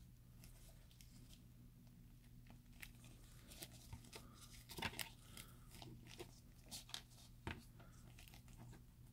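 Near silence with faint scattered clicks and rustles of an action figure being handled, its plastic parts and coat being adjusted, over a low steady hum.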